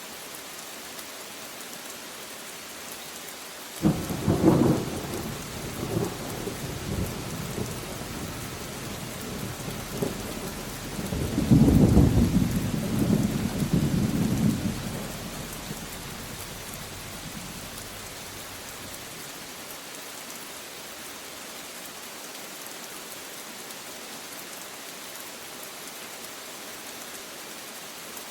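Steady rain with two rolls of thunder. The first breaks suddenly about four seconds in and rumbles on for a few seconds. A second, louder peal comes a few seconds later and dies away, leaving only the rain.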